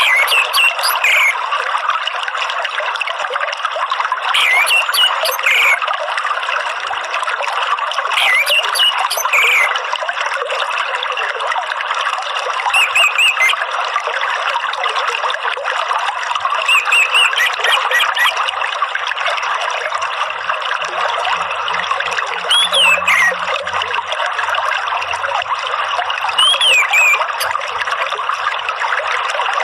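Running water trickling and pouring steadily, with a short whistled bird call repeating about every four seconds.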